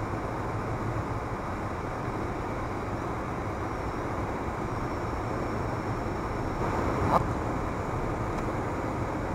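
Steady road and tyre noise of a car driving at highway speed, heard from inside the cabin. A single short sharp tick or knock about two-thirds of the way through.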